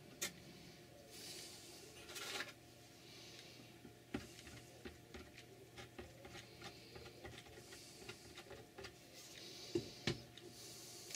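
Thin wooden model-ship ribs and a plastic glue bottle handled over a slotted wooden jig: scattered small clicks, taps and soft rustles, with two sharper knocks close together near the end.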